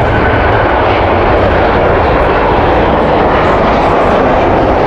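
Airliner engines on a low landing approach, a loud, steady rushing noise.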